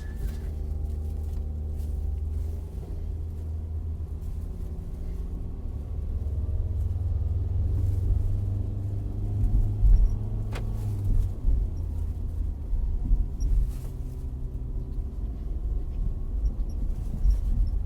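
Nissan Kicks driving, heard from inside the cabin: steady engine and road rumble. A few short knocks come through as it goes over bumps, the loudest about ten seconds in.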